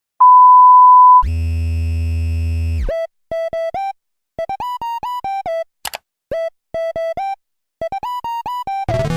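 A loud, steady electronic beep lasting about a second, followed by a held synthesizer chord with deep bass, then a quick run of short, bouncy synthesizer notes forming a simple melody.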